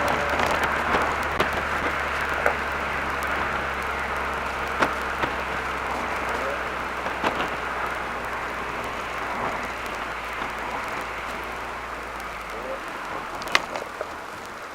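Mercedes-Benz SLK 230 Kompressor's supercharged four-cylinder humming steadily under tyre and wind noise, heard from inside the car, with scattered sharp clicks. The engine note drops away and the sound eases about thirteen seconds in, as the car slows.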